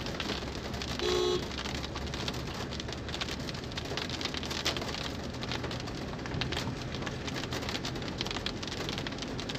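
Road noise inside a moving car: a steady low rumble under a crackling hiss of the tyres rolling over a leaf-strewn road. A brief steady tone sounds about a second in.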